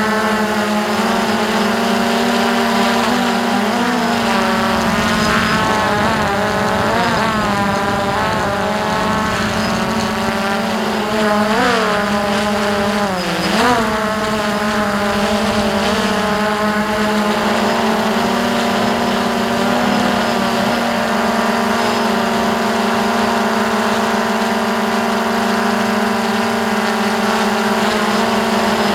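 Hubsan X4 Pro quadcopter's motors and propellers whining, heard through the drone's own onboard camera. The pitch wavers up and down several times between about 3 and 14 seconds in as the drone turns and adjusts, then holds steady in a hover.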